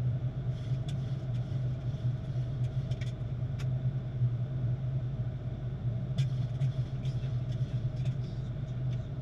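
Steady low drone on the flight deck of a Boeing 737-800 in flight on approach: air and engine noise heard inside the cockpit, with faint scattered ticks.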